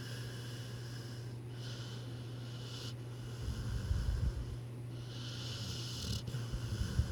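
Slow snoring: a low rumbling snore a few seconds in and another near the end, with hissy breaths between them, over a steady low hum.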